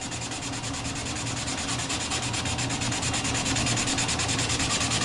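Cotton t-shirt rag rubbed briskly over a maple board, wiping off excess dye: a steady, fast scratchy rubbing.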